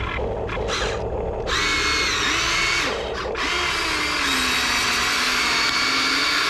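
Small electric motors of a Huina 1593 RC excavator whining as it works its boom and tracks, pushing the bucket into the ground to lever itself up a slope. The whine wavers in pitch, comes in fully about a second and a half in, and dips briefly near the middle.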